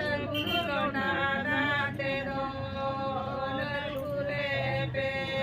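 Voices chanting a song in long, held notes, with wavering higher lines over one steady note.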